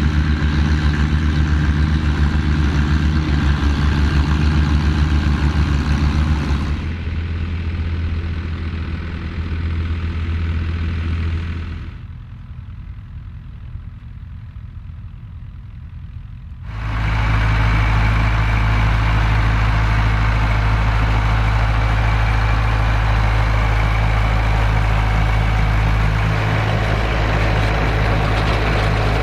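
Vintage farm tractor engines running at a steady pace, heard across several cut-together shots; one short stretch in the middle is quieter and more distant.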